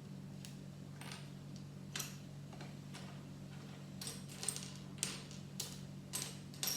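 Plastic Lego pieces clicking and rattling against each other as they are handled and sorted, about ten light, irregular clicks. A steady low hum runs underneath.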